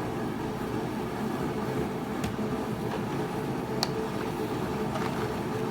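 Steady running hum and rush of a space heater, with a faint steady tone in it and a couple of light clicks about two and four seconds in.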